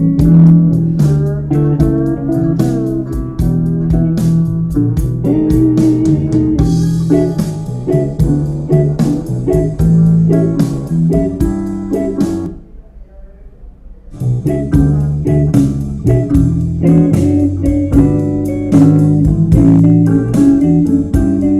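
Blues-rock song with guitar, bass guitar and regular drum hits played back on a Bluetooth speaker for a sound test. About twelve seconds in the band drops out briefly, then comes back in a second and a half later.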